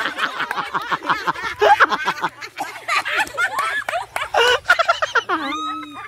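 Several people laughing hard together in rapid, short bursts of laughter. Near the end one voice holds a single steady note.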